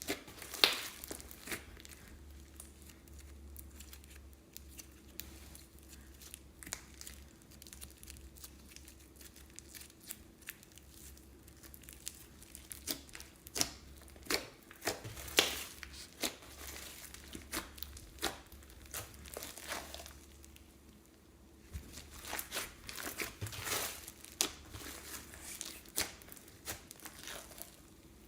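Slime being worked by hand, with crinkling of plastic piping bags and irregular sticky clicks and crackles, busiest in the middle and again near the end.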